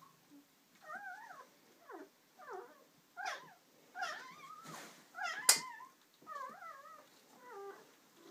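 Newborn Borzoi puppy squealing: a string of short, wavering high-pitched cries, with a sharp click about five and a half seconds in.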